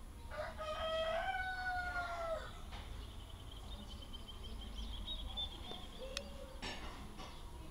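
A rooster crowing once, a pitched call of about two seconds that holds steady and drops away at the end. Afterwards a faint, high, thin call and a couple of light clicks.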